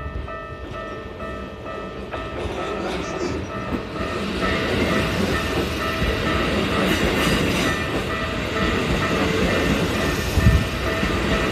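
Level crossing warning bell ringing in a steady repeating pattern while a Keikyu Daishi Line train runs past, its wheels clacking over the rail joints. The train noise builds from about four seconds in, with one heavy low thud near the end.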